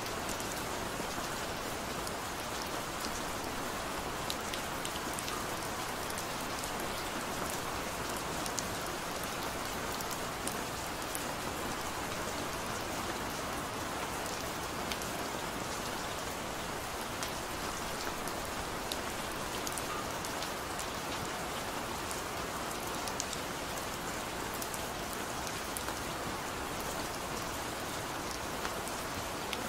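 Gentle, steady rain: an even hiss with scattered sharp ticks of single drops.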